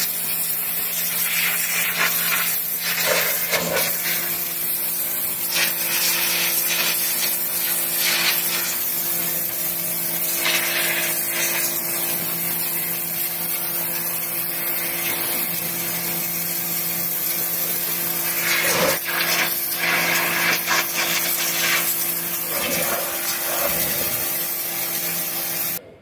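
WAP Combate 2600 induction-motor pressure washer running: a steady motor-and-pump hum under the loud hiss of the high-pressure water jet striking the ground. It cuts off abruptly near the end.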